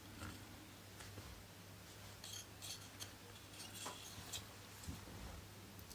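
Faint, scattered clicks and light rubbing of small black plastic model-kit parts being handled and pressed together by hand, over a low steady hum.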